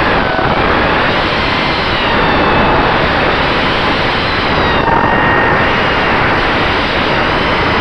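Racing quadcopter's brushless motors and propellers whining, the pitch rising and falling with throttle, under a heavy rush of wind noise on the drone's onboard microphone.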